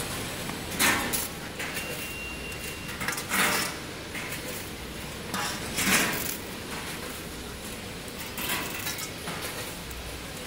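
Small plastic parts clattering against a stainless steel pot as they are handled, in four short rattling bursts a couple of seconds apart.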